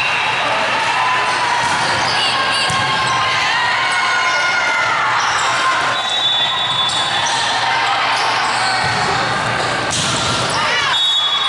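Volleyball rally on an indoor sport court: players' shoes squeaking in short high glides on the floor, and the ball being struck, with a cluster of sharper hits near the end as it is attacked at the net, over a background of crowd and player voices.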